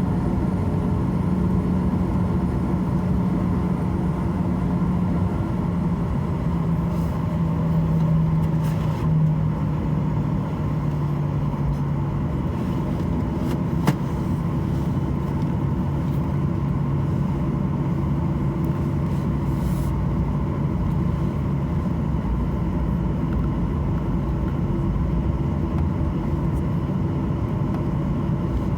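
Cabin noise of a Boeing 737-800 taxiing: the steady hum of its CFM56-7B jet engines under a low drone whose pitch drops a little about nine seconds in. A single sharp click near the middle.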